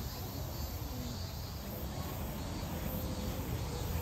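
Steady outdoor background noise: a low rumble with a faint high hiss over it and faint far-off voices now and then.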